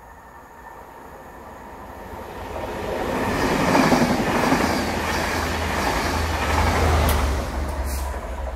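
Locomotive-hauled passenger train passing at speed: the rumble and wheel clatter of the coaches swells to its loudest about four seconds in and holds. Near the end the Class 67 diesel locomotive pushing at the rear goes by, adding a deep engine drone from its EMD 12-cylinder two-stroke engine.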